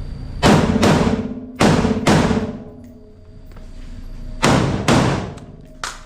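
Three double-taps from an AR-15-style rifle in 5.56, the two shots of each pair a little under half a second apart, each shot ringing on in the reverberant indoor range.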